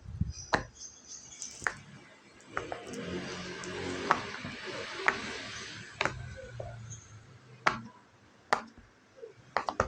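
Silicone pop-it fidget toy being pressed, its bubbles popping one at a time as sharp, irregularly spaced clicks. Soft rustling of the toy being handled runs through the middle.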